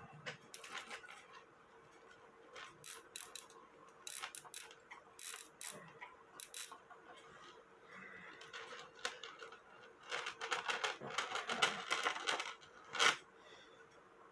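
Light metallic clicks and clinks of a cuckoo clock's chain and wire weight hooks being handled, scattered at first, then a run of rattling with one sharper clink near the end. A faint steady hum sits underneath.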